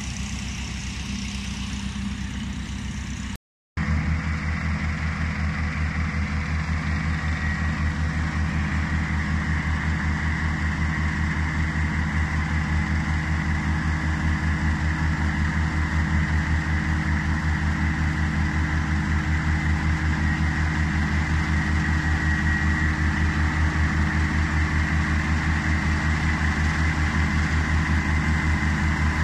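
Machine blueberry harvester working: its engine and shaking mechanism run steadily with a fast, even pulsing, cut off briefly a few seconds in.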